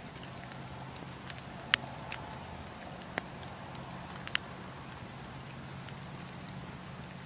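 Wood campfire crackling, with scattered small ticks and a handful of sharp pops from the burning logs, the loudest a little under two seconds in. A steady low hum runs underneath.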